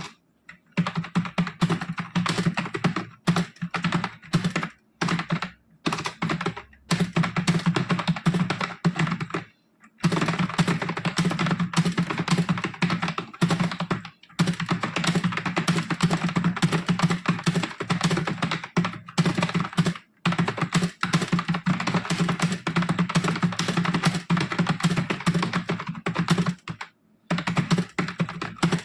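Fast touch-typing on a computer keyboard during a timed typing test: a rapid, continuous run of key clicks, broken by short pauses every few seconds.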